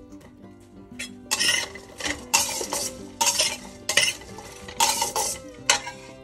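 A metal spatula scraping and stirring chopped onion and green bell pepper in a dry stainless steel pot, with no oil in it yet, in about six strokes of roughly half a second each, starting about a second in. Faint background music underneath.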